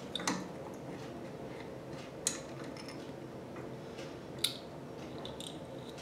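Small sharp clicks and taps of metal parts being handled as the cover of a Watts LF009 backflow preventer is worked loose and lifted off its body: one near the start, one about two seconds in, one about four and a half seconds in, and a few lighter ticks near the end, over a faint steady hum.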